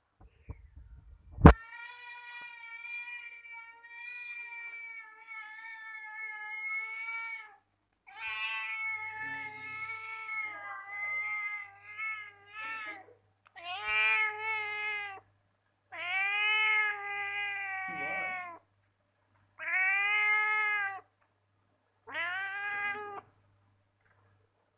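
Domestic cat meowing in drawn-out, sweet-toned calls: first one long call of about six seconds, then a run of about five shorter meows with pauses between them. A single sharp click sounds about a second and a half in, just before the first call.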